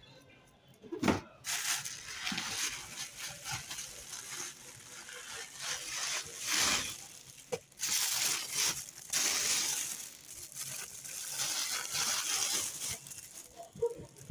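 Plastic packaging crinkling and rustling in irregular handfuls as a lens wrapped in a plastic bag and foam sleeve is handled, with a single thump about a second in.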